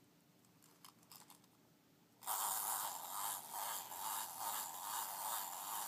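Wind-up toy duck's clockwork mechanism: a few faint ratchet clicks as it is wound, then from about two seconds in a loud, steady buzzing whirr, rising and falling, as the spring unwinds and the toy walks.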